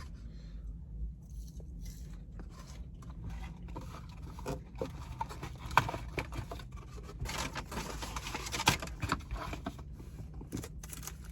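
A person biting into and chewing a spicy grilled chicken sandwich, with small crunches and irregular rustling and scraping, busiest about two thirds of the way in.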